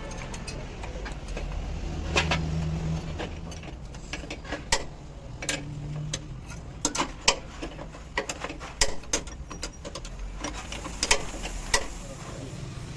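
Irregular metallic clicks and knocks of tools and parts being handled during hands-on brake booster work, over a low steady hum.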